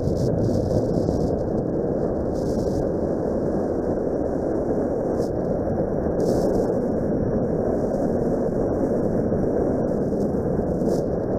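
Steady rumble of wind buffeting the dashcam microphone on a moving motorcycle, mixed with the Suzuki Grasstracker Big Boy's single-cylinder engine running at an even cruise.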